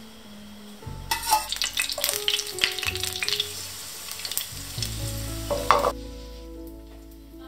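Minced garlic sizzling and crackling in oil in a frying pan as garlic oil is made over low heat. It starts about a second in and cuts off about six seconds in.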